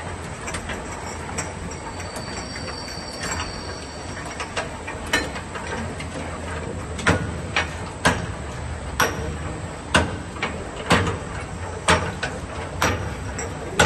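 Automatic glass bottle rinser running: a steady machine hum with sharp clacks and clinks from the mechanism and glass bottles, which grow louder and settle into about one a second from about seven seconds in.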